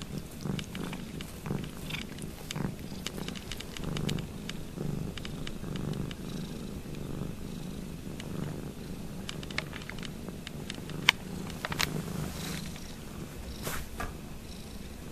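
Domestic cat purring noisily and steadily, a low pulsing rumble, with a few sharp clicks in the second half, the loudest about eleven seconds in.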